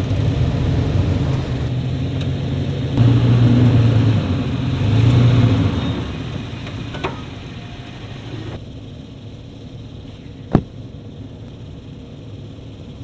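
4x4 truck's engine running under load as it climbs onto MAXTRAX recovery boards in sand, with two louder surges of throttle before the engine drops back about six seconds in. A single sharp knock comes near the end.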